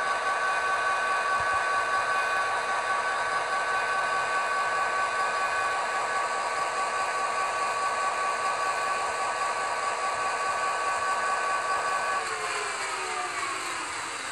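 N gauge Class 67 model's DCC sound decoder playing the diesel engine sound of the class's EMD V12 two-stroke through the model's small speaker: a steady high whine over engine noise. About twelve seconds in, the whine falls away in pitch as the engine sound winds down.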